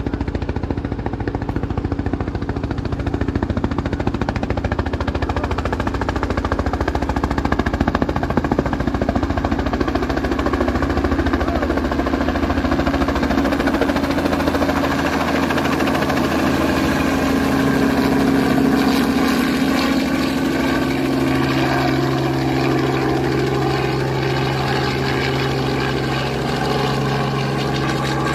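Small two-bladed light helicopter flying low nearby, its engine and rotor giving a steady drone; a deeper hum joins about three-quarters of the way through.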